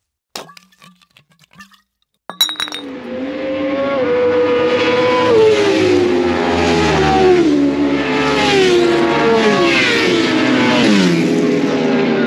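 Track-day motorcycles at high revs passing along the straight one after another, each engine note falling in pitch as it goes by. The sound starts suddenly about two seconds in, after a few faint clicks.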